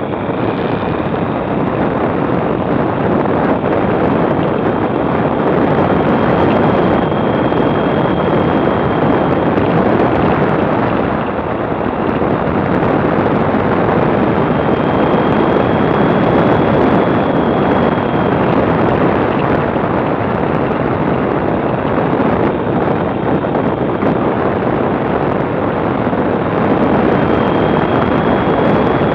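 A motorcycle riding at road speed: steady wind rush over the bike-mounted camera's microphone, with the engine running underneath.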